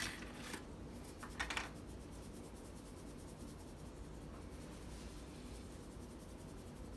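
Seasoning shaken from a shaker bottle onto a raw brisket and rubbed in with gloved hands: faint scratchy rustling, with a couple of short scratchy bursts in the first second and a half.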